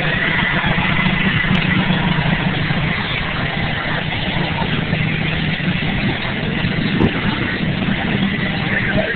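Monster truck engine running loud and steady, with a single sharp click about seven seconds in.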